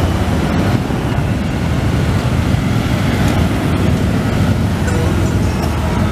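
A stream of Harley-Davidson touring motorcycles passing one after another at low speed, their air-cooled V-twin engines running in a steady, dense low rumble.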